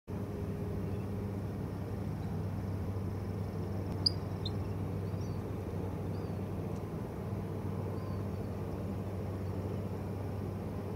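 Steady low engine drone in the background, with one sharp click about four seconds in and a few faint, short high chirps.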